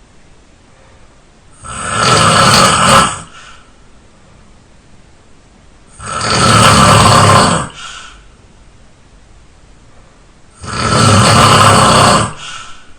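A man snoring loudly while asleep: three long snores spaced about four and a half seconds apart, each followed by a brief softer breath.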